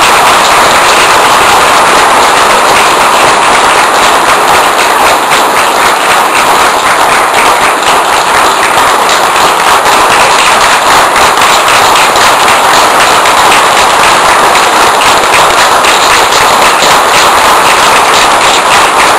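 Audience applauding, loud and steady, a dense sound of many hands clapping.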